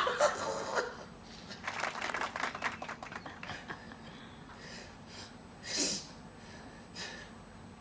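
Soft human breathing sounds from people trying to bring on a sneeze: a run of crackly, breathy noises about two seconds in and a short sharp breath near six seconds. No sneeze comes yet.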